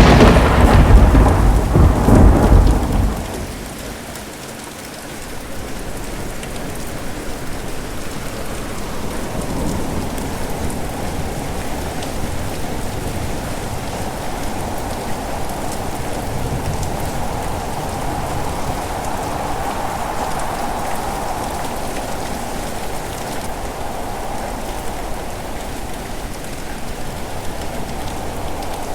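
A loud thunderclap right at the start, rumbling for about three seconds, then steady heavy rain with strong wind.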